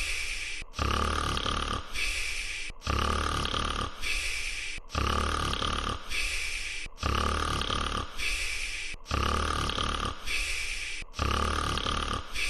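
A cartoon snoring sound effect, looped: a low snore in, then a higher, breathy breath out. It repeats evenly about every two seconds, six times over.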